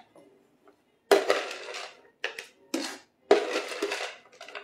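Chopped pecans being poured and handled, making four or five short rustling, crackling bursts.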